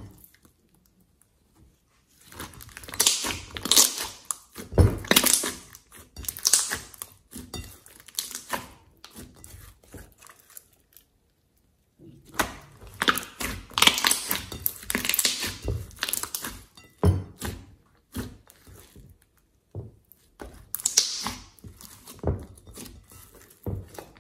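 Hands squeezing and stretching a thick glossy slime: sticky squelches and crackling pops, in several spells with short pauses between.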